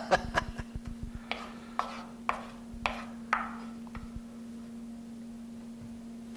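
A wooden spoon knocking and scraping against a skillet while sautéed mushrooms are stirred and scooped: a few quick clicks, then five sharp knocks about half a second apart, each with a short ring. After about four seconds only a steady low hum remains.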